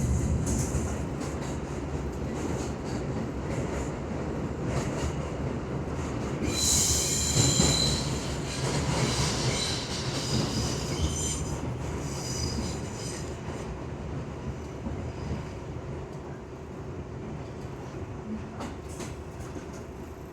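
R62 subway train running on the track, a steady rumble of wheels and car, with high-pitched wheel squeal from about six seconds in, lasting several seconds; the running noise grows quieter toward the end.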